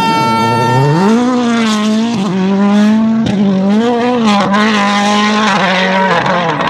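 Toyota Yaris WRC rally car's turbocharged 1.6-litre four-cylinder engine revving hard under full throttle. Its pitch climbs about a second in, holds high and dips briefly several times with gear changes and lifts before picking up again. A steady high tone ends about a second in.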